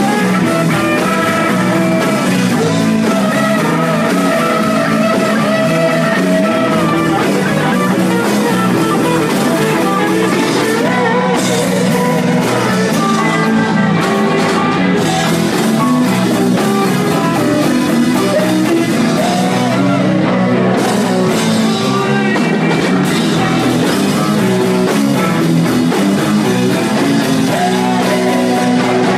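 Live rock and roll band playing loudly: guitar and drum kit with a voice singing.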